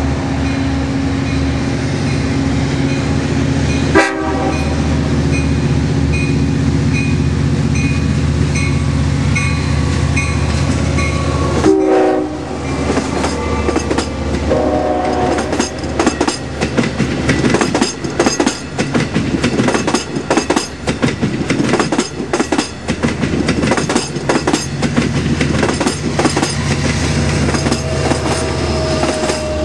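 Long Island Rail Road diesel-hauled passenger train approaching and passing: a steady locomotive engine hum with a bell ringing over and over, the horn sounding briefly about four seconds in and again in longer blasts around twelve to fifteen seconds. The bi-level coaches then go by with a rapid clickety-clack of wheels over the rail joints, and the trailing locomotive passes near the end.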